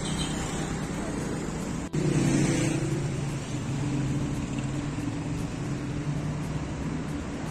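City street traffic: a car passes close by about two seconds in, followed by a steady low engine drone of vehicles.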